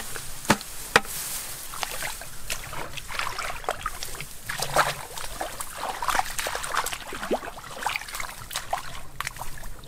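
Hands and feet splashing and sloshing in shallow muddy water, with irregular small splashes and squelches as mud is worked by hand. Two sharp knocks about half a second and a second in are the loudest sounds.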